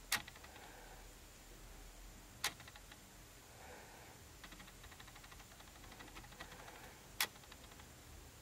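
Quiet room tone broken by three sharp, faint clicks: one right at the start, one about two and a half seconds later and one near the end. Between the second and third, from about the middle on, there is a stretch of fine, rapid light ticking.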